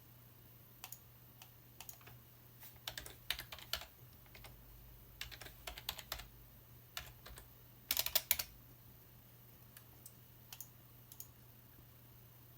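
Typing on a computer keyboard in irregular bursts of keystrokes, with the busiest flurries about three and eight seconds in, over a steady low hum.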